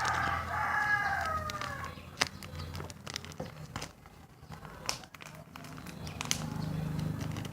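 A rooster crowing, one drawn-out call that sinks in pitch and fades about two seconds in, followed by light clicks and taps.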